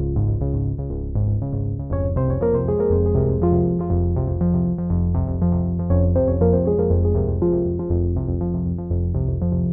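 Background music with a steady beat: quick repeating keyboard notes over a bass line.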